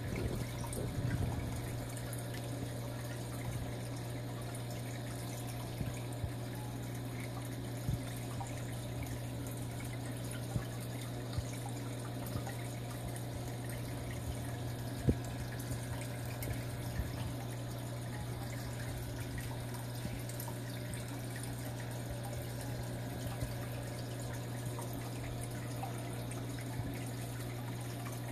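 Aquarium equipment running: a steady low hum under trickling water, with a few faint clicks, the sharpest about halfway through.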